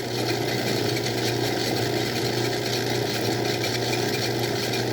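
Craftsman 109 lathe running steadily, its motor and belt drive humming while a sharp drill bit cuts evenly into the workpiece.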